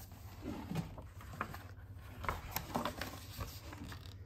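Faint rustling and light taps of a picture book's page being turned and the book being handled.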